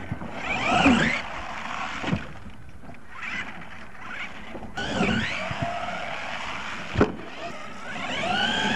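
Radio-controlled monster truck's motor revving up and down in a rising and falling whine as the truck throws dirt. Two sharp knocks, about two seconds in and near seven seconds, come from the truck hitting the ground; the second is the loudest.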